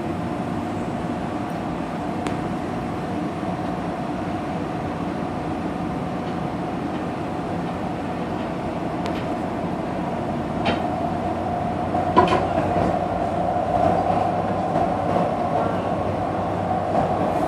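Metro light-rail car running between stations, heard from inside the car: a steady rumble with a held hum that grows louder from about ten seconds in, and a few light knocks.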